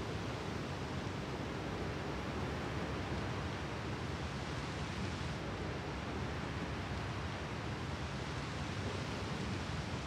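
Seashore ambience: a steady, even hiss of surf washing on the shore, with no single wave breaking out of it.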